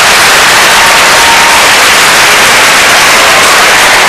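Large theatre audience applauding loudly, a dense even clatter of clapping.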